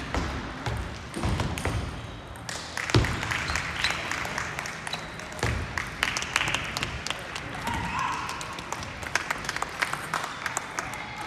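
Table tennis balls clicking off bats and tables, irregular and overlapping from rallies at many tables in a large hall. A few dull thumps come in the first three seconds.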